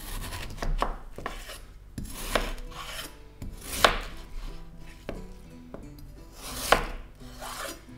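Chef's knife slicing a peeled beetroot on a wooden cutting board: several slow cuts, each a short scraping stroke through the beet that ends in a sharp knock of the blade on the board, the loudest near the middle and toward the end.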